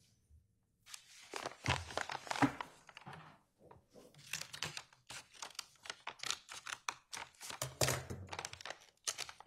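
A sealed evidence package being opened by hand: tearing and crinkling of the packaging with small knocks as it is handled, starting about a second in and going on in irregular bursts.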